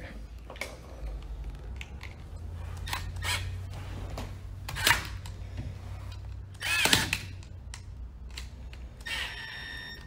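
Small sharp clicks as wires and the GFCI receptacle are handled. Near the end a cordless electric screwdriver whines briefly as it drives down a terminal screw to clamp the wire tight.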